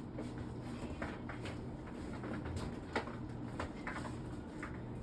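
Grocery packages being handled and set down, giving a scatter of light knocks and rustles over a steady low hum.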